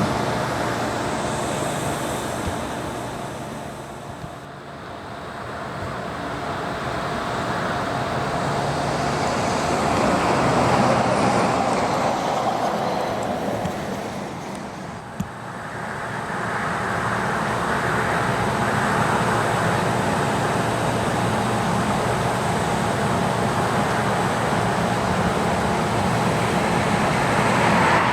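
Road traffic going by, the noise of passing vehicles swelling and fading several times.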